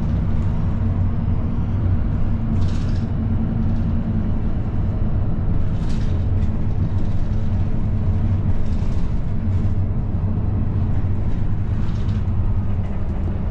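A bus engine drones steadily, heard from inside the bus as it drives, with a few short hisses along the way.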